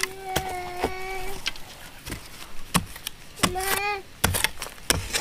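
A high-pitched voice calling in drawn-out, wordless notes, one held for over a second near the start and a rising-and-falling call about three and a half seconds in, over irregular sharp knocks.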